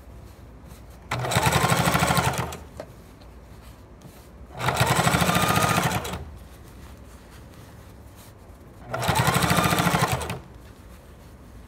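Sewing machine top-stitching a seam through trouser fabric, running in three short bursts of about a second and a half each, stopping between them as the cloth is repositioned.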